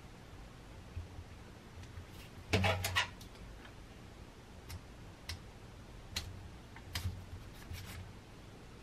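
A fork crimping the edges of puff-pastry pies on a lined baking tray, its tines tapping lightly through the dough: scattered single ticks, with a louder clatter of a few clicks about two and a half seconds in.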